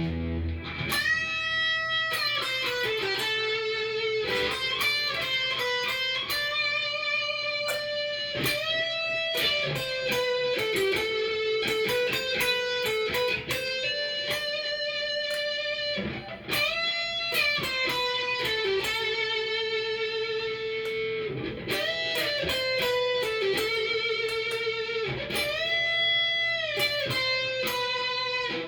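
Korean-made 1999 Cort S series electric guitar played through a Fender amp: a single-note melody of held notes that bend and slide smoothly from one pitch to the next.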